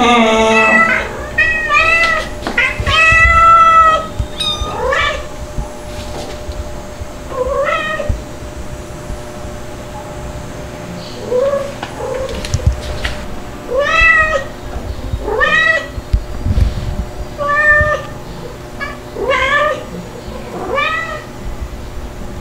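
Two-month-old kitten crying with repeated short meows, each rising and falling in pitch, about one every second or two. The calls are loudest and closest together in the first few seconds and ease off for a while near the middle.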